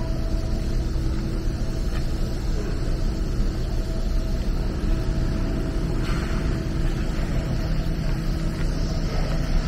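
Steady low machinery rumble with a faint constant hum, a little more hiss in the upper range from about six seconds in.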